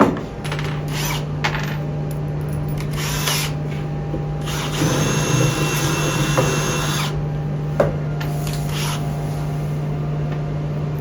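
Power drill running in a few short bursts, with one longer run of about two and a half seconds in the middle with a motor whine, driving a confirmat screw into the cabinet's particleboard panels.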